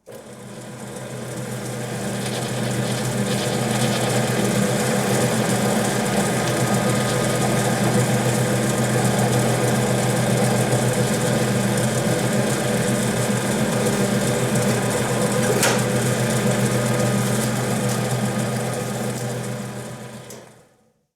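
Hokuetsu Kogane 3 de-awning machine running steadily under its electric motor and V-belt drive, a continuous mechanical hum with one sharp tick about three-quarters of the way through.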